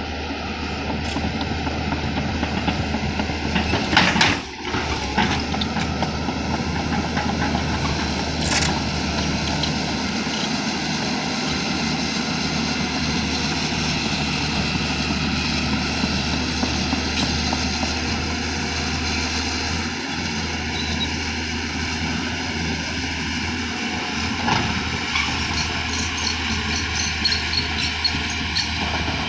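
Diesel engine of a heavy earthmoving machine, a backhoe loader or excavator, running steadily. A sharp clank comes about four seconds in, with a few fainter knocks later.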